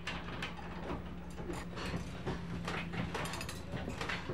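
Irregular metal clicks and clanks of a hand-worked ratchet lever retracting the formwork carriage on a steel climbing bracket, with a dense run of rapid clicks about three seconds in. A steady low hum runs underneath.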